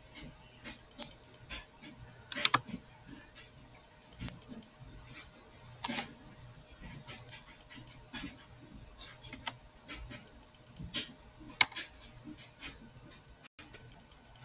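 Computer keyboard typing in short quick bursts of several keystrokes, with single clicks and pauses between the bursts.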